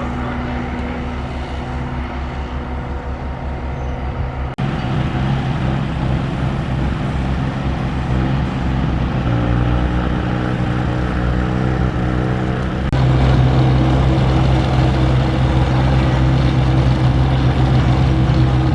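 Heavy construction machinery with diesel engines running steadily. The engine sound changes abruptly twice, getting louder after the second change.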